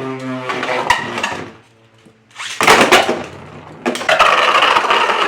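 3D-printed Beyblade tops in a stadium: a short loud rasp about two and a half seconds in, then from about four seconds in the tops spin and grind against each other and the stadium with a steady loud scraping.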